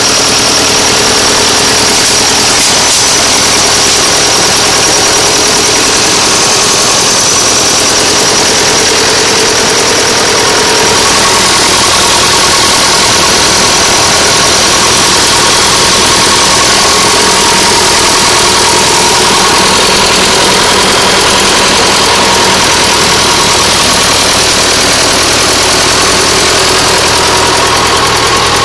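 Nuffield tractor engine running steadily on its first run after a full rebuild, its pitch shifting slightly about eleven seconds in.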